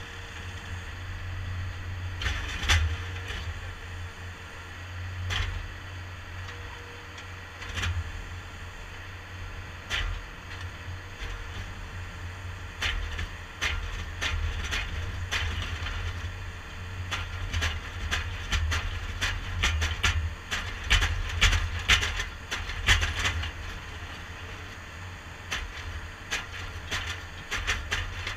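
Compact track loader's engine running while its hydraulic drive head turns a steel helical pile down into the ground, a steady low rumble with scattered sharp clicks and knocks that come thicker past the middle.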